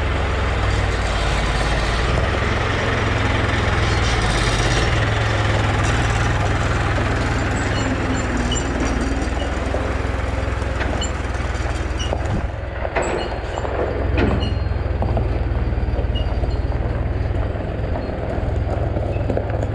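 Heavy farm machine engine running steadily with a deep rumble, with a couple of sharp knocks about two-thirds of the way through.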